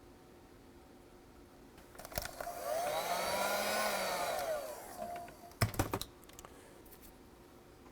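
Heat gun blowing briefly to shrink heat-shrink tubing over soldered joints: its motor whine rises as it spins up and falls as it runs down over about three seconds. A few sharp clicks and knocks follow just after it stops.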